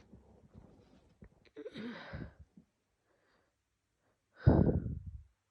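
A woman with a cold sneezing. A breathy, voiced intake about two seconds in builds to one loud, sudden sneeze near the end.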